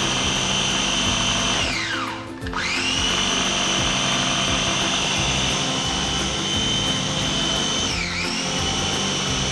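Small electric food processor running as it purees malunggay (moringa) pesto, a steady high motor whine. About two seconds in the motor winds down and then spins back up, and near the end its pitch dips briefly before recovering.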